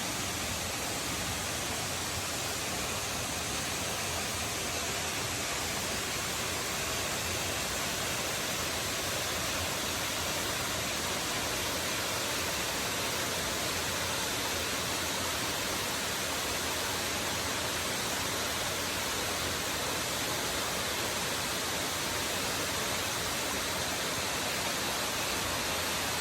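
Waterfall: a steady rush of falling water that holds level throughout.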